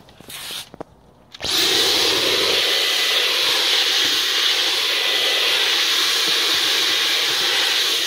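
Dyson V11 Absolute Extra cordless stick vacuum switched on about a second and a half in, then running steadily with a rush of air and a faint high whine as its small nozzle sucks at the carpeted corner of a car boot.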